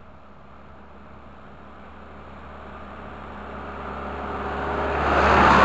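Ursus 1014 tractor's diesel engine running steadily as the tractor drives toward the microphone. The sound grows louder throughout and is loudest near the end, as the tractor reaches the microphone.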